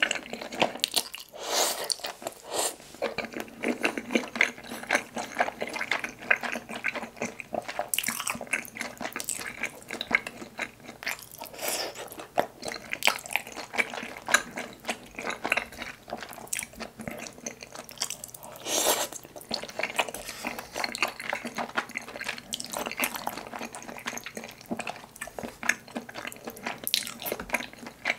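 Close-miked eating sounds of spicy tteokbokki: chewy rice cakes slurped up out of thick sauce and chewed with wet, sticky smacking.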